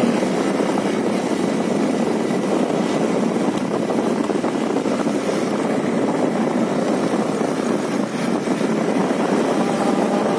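A steady rush of wind on the microphone over a running vehicle, recorded while riding along a street.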